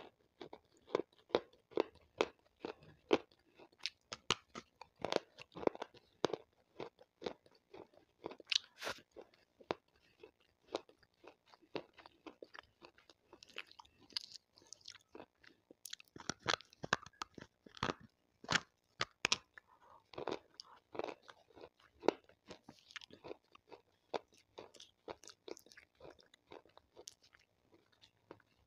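Close-miked biting and chewing of water-soaked slate stone, a dense, irregular run of sharp crunches.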